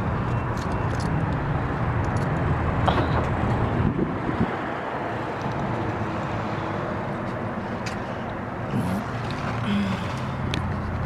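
Steady car and traffic noise with a low engine hum, which later becomes the engine and road noise heard inside a moving car.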